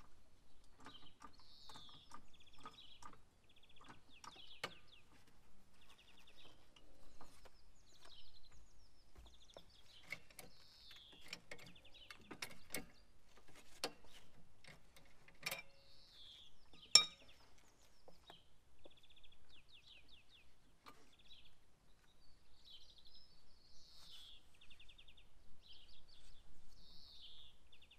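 Small birds singing repeated short trills and chirps, with scattered sharp clicks and knocks throughout, the loudest knock about seventeen seconds in.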